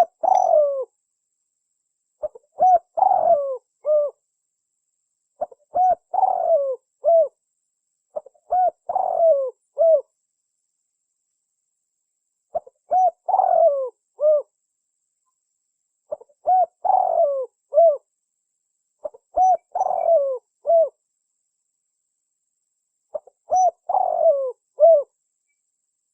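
Spotted dove (tekukur) cooing: a short phrase of several coo notes, repeated about every three seconds, eight times in all.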